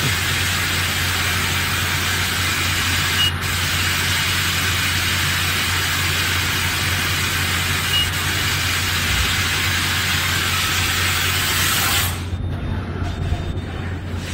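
Coolant spraying inside a Mazak Variaxis i-300 AWC five-axis machining center while the spindle machines a workpiece: a loud steady hiss over a low machine hum. About twelve seconds in the coolant spray cuts off suddenly, leaving the hum.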